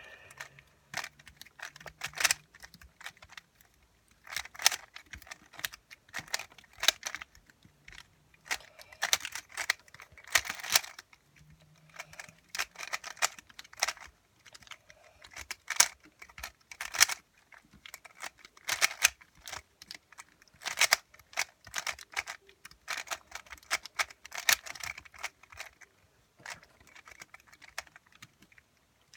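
A 3x3 Rubik's cube being turned fast during a speedsolve: the layers click and clack in rapid bursts, broken by short pauses.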